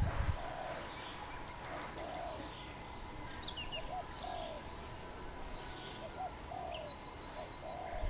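Spotted dove cooing: a steady run of low, soft coo notes, about one a second. Small birds chirp higher up in the background, with a quick series of chirps near the end.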